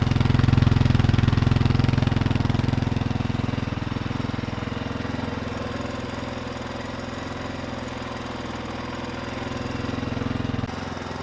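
A freshly rebuilt 1999 Suzuki DR350 single-cylinder four-stroke engine running on its first start-up. The level eases off over the first few seconds and then holds steady. It drops suddenly near the end.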